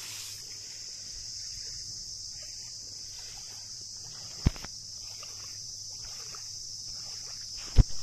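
Steady high-pitched chirring of insects. Two sharp thumps break in, one about four and a half seconds in and a louder one near the end.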